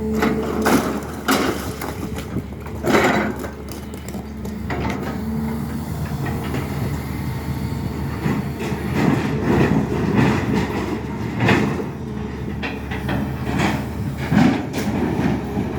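SANY hydraulic excavator working, its engine running with a steady low drone under irregular clanks and scrapes of metal on rock and soil.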